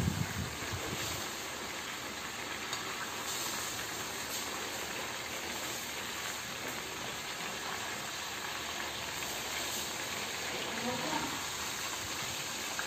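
Chicken pieces deep-frying in hot oil in a pan, with a steady sizzle throughout. A brief low knock comes right at the start.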